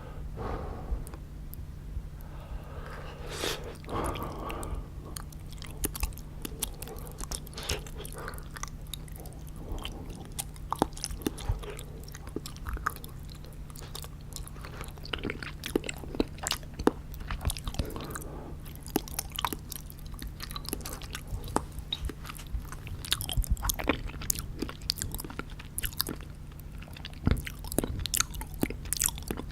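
Close-miked chewing of soft, syrup-soaked gulab jamun: wet, sticky mouth clicks and smacks, irregular throughout, over a steady low hum.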